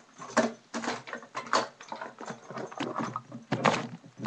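A string of irregular rustles and knocks close to the microphone, about a dozen short bursts with no steady rhythm, the loudest near the middle and near the end.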